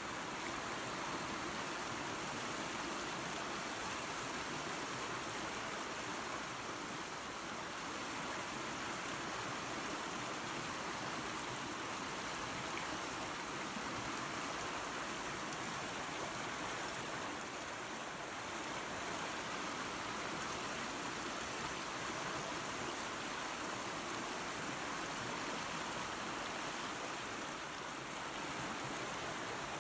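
Waterfall and creek water rushing in a steady, even wash with no breaks or distinct splashes.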